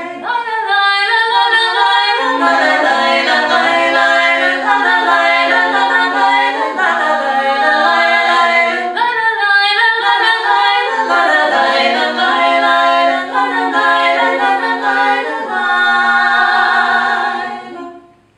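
Three women's voices singing a cappella in close vocal harmony, several held lines moving together. The singing breaks off near the end.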